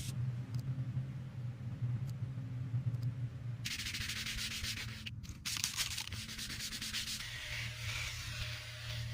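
A power sander running with a steady hum. A bit over a third of the way in it bites into a surface and gives a loud, continuous sanding rasp, which breaks off briefly about halfway and then resumes.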